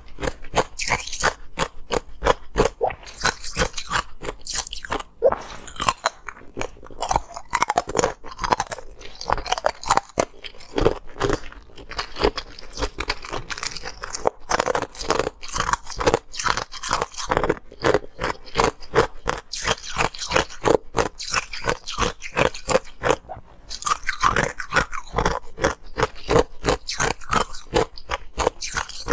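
Green-coloured ice being bitten and chewed close to the microphone: rapid sharp crunches, several a second, with a few brief pauses.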